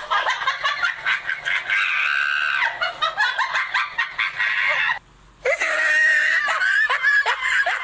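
A woman's voice talking and crying out in a high, shrill pitch, breaking off for half a second about five seconds in. It then goes into a string of quick falling cries, about three a second.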